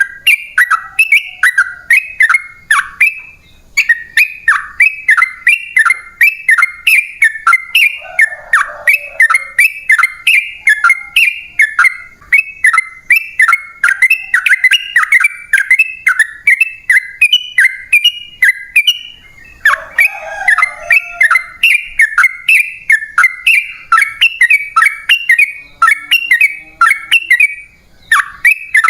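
Yellow-vented bulbul (trucukan) singing a long, rapid run of short bubbly notes with only brief pauses, the loud, drawn-out song known as "ropel panjang".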